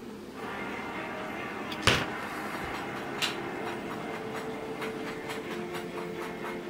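Small electric motor and toy gearbox running, a steady mechanical whirr as it turns the cams that move a doll's arms. A sharp knock about two seconds in, then lighter clicks.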